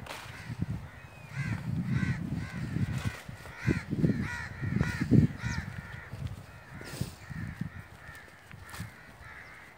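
Crows cawing over and over, a string of short calls about two a second, over a low, uneven rumble.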